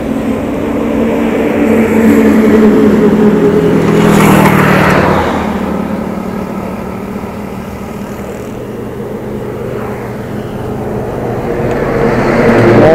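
Highway traffic going by: a vehicle's engine and tyre noise build up and pass close about four to five seconds in, then fade. Another vehicle approaches near the end.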